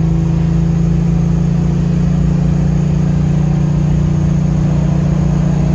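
Heavy truck's diesel engine running with a steady, even drone, heard from inside the cab as the truck travels downhill.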